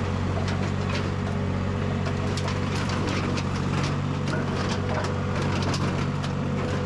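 Vermeer mini skid steer's engine running steadily while the machine carries a bundle of crushed sheet metal in its bucket, with scattered clanks and crunches from the metal over the engine.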